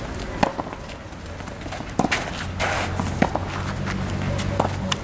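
Tennis court activity: a few sharp, irregularly spaced knocks of tennis balls being struck and bouncing, with players' footsteps between them. A low steady hum comes in about halfway through.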